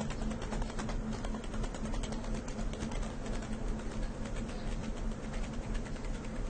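Train station platform ambience: a steady low hum with a dense, continuous run of small clicks and knocks over it.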